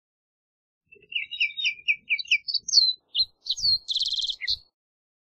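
A green-tailed towhee sings one song phrase starting about a second in: a quick run of short repeated notes, then higher slurred notes, ending in a fast buzzy trill.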